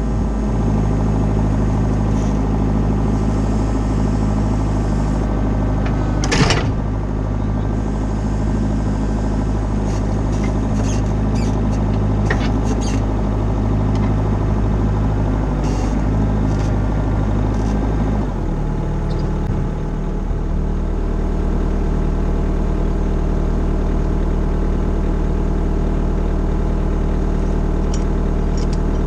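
A machine's engine running steadily, settling to a lower speed about eighteen seconds in, with one sharp knock about six seconds in and a few lighter clicks.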